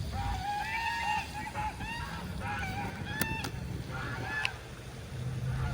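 Geese honking, a quick run of repeated calls that dies away about four and a half seconds in.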